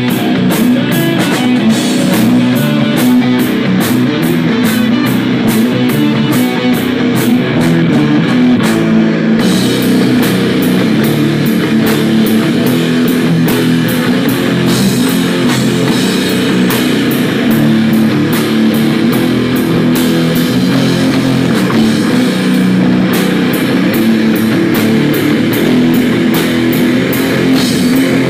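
Live rock band playing loud on electric guitars and a drum kit. The cymbals keep a steady beat of about four strikes a second, drop out briefly about nine seconds in, then come back.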